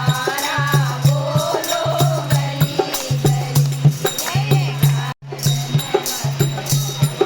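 Devotional bhajan-kirtan singing in chorus, with jingling hand percussion keeping a steady beat over a pulsing low accompaniment. The sound cuts out for an instant about five seconds in.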